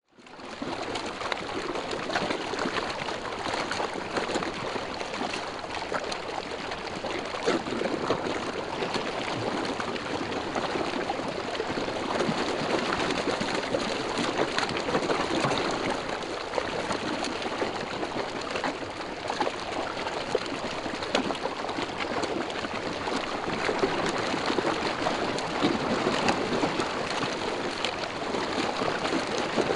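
Constant splashing and churning of water from a packed shoal of fish thrashing at the surface in a feeding frenzy, full of small quick splashes over a steady rush of water. It fades in within the first second.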